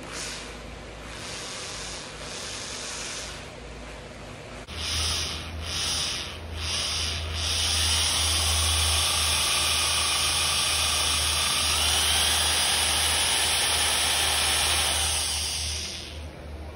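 Cordless drill boring a small bit into the broken threaded stem stuck inside a tuba piston. Quieter at first, then several short bursts of the trigger about five seconds in, then it runs steadily at speed for about nine seconds and stops near the end.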